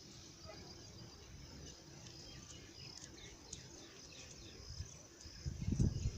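Faint high-pitched chirping of insects and birds. A louder low rumbling starts near the end.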